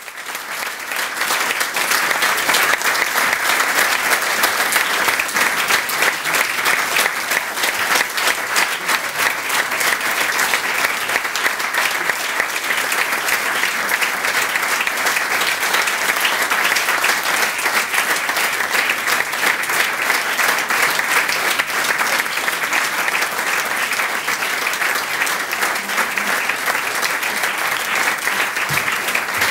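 Audience applauding: dense, steady clapping that swells up in the first second and keeps on unbroken.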